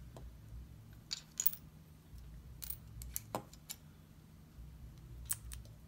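Plastic LEGO bricks clicking as they are pressed together and handled: a scatter of short, sharp clicks, several seconds apart.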